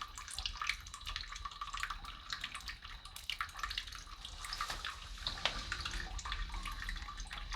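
Small irregular water splashes and drips, with light plastic clicks and taps, as a new toilet flapper is handled in the water of a toilet tank.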